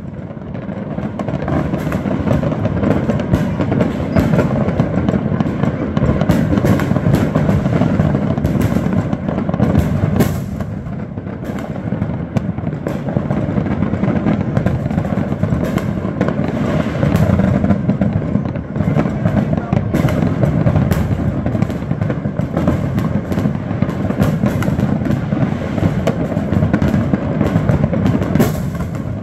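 Neighbourhood New Year's fireworks: aerial shells and firecrackers going off constantly, a dense rumble of booms broken by many sharp irregular bangs and pops.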